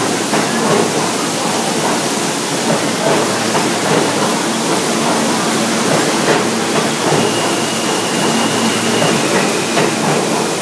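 Water gushing and spraying from a broken pipe onto a subway train, a loud, steady hiss with a faint steady hum under it.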